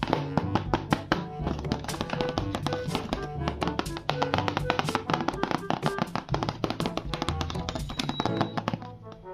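Background music with held bass notes and a fast, busy clicking percussion beat.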